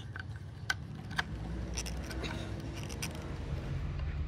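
A hand screwdriver driving a steel screw into hardwood: a few sharp metallic clicks, the loudest two within the first second or so, over a steady low hum.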